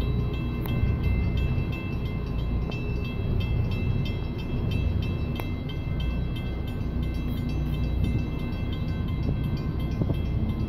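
Boat engines running at idle: a steady low rumble with no change, overlaid by faint steady high tones.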